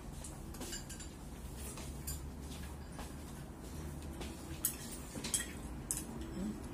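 Chopsticks clicking against porcelain bowls during a meal: a scattered series of light clinks, the sharpest two a little past the middle.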